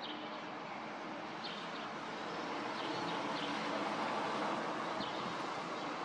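Street traffic noise, a steady rush that swells to a peak about four seconds in as a vehicle passes. Faint high bird chirps come through it about once a second.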